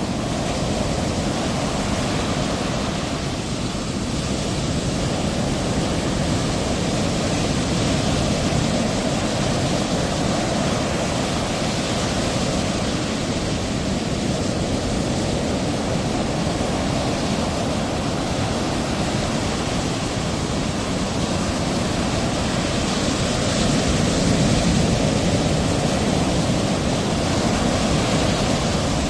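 Ocean surf: a steady rush of breaking waves, swelling a little about 23 seconds in.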